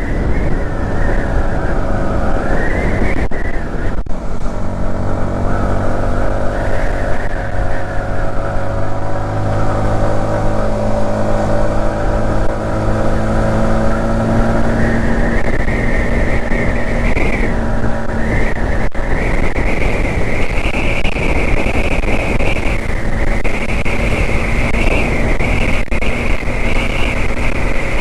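Yamaha MT-15's 155 cc single-cylinder engine running under way, its pitch wandering with the throttle, then rising about halfway through and holding higher, over steady road and wind noise.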